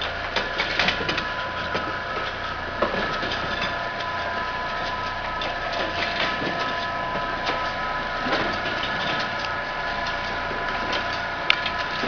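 Insulin unibody syringe assembly machine running: a steady hum with a few high whining tones under irregular clicking and clattering of its parts, and one sharp click near the end.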